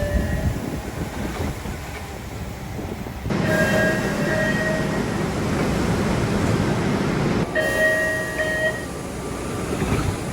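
MBTA Orange Line subway car door chimes sounding from outside the train: short, evenly repeated beeps in two pitches. They come once about a third of the way in and again near the end, over a steady train hum, and the background changes abruptly between the chimes.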